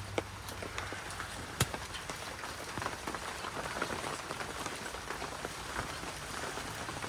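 Steady rain falling on an open umbrella and garden foliage, heard as many small drop ticks over a hiss, with one sharper tap about a second and a half in.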